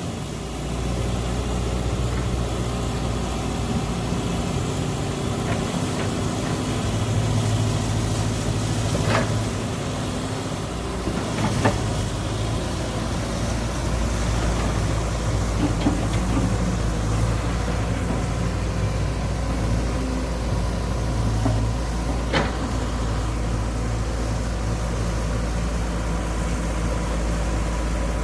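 Diesel engine of heavy farm or earthmoving machinery running steadily, with a few short sharp clanks.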